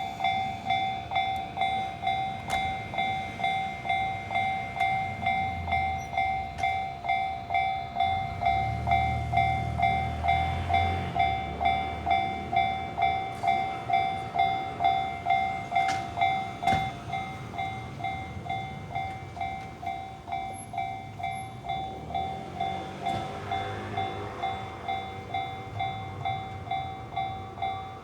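Japanese railway level-crossing alarm ringing its repeated two-tone clang, about two strikes a second at a steady pitch. A low rumble swells and fades about a third of the way in.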